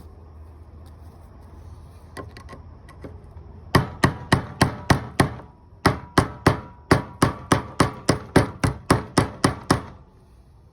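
Hammer blows knocking the fuel pump's lock ring around to lock it onto the tank: a few light taps, then a run of about six sharp strikes, a short pause, and about thirteen more at roughly three a second, each ringing briefly.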